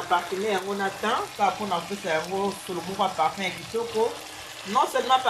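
Lamb chops sizzling in a frying pan under a woman's voice. The voice is the loudest sound and breaks off for about a second near the end, leaving only the sizzle.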